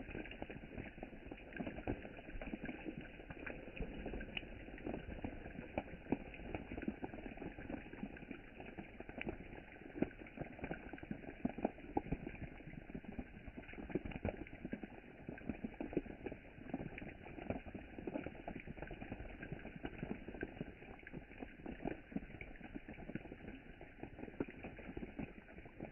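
Steady rain falling on a lake surface: a dense, irregular patter of many small drops plinking into the water.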